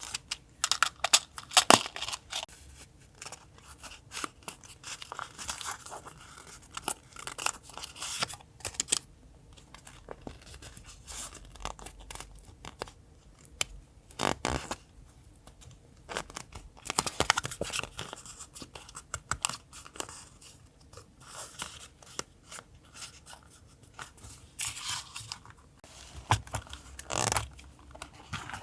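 Paper being handled for collage: torn, rustled and crinkled by hand, in short irregular crisp scrapes and rips with small clicks between.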